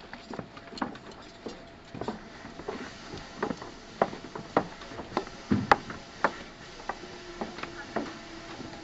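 Onboard running sound of a JR 211 series 5000 electric train car: irregular clicks and knocks from the wheels passing over rail joints and points, about two or three a second and uneven in loudness, with a steady hum coming in near the end.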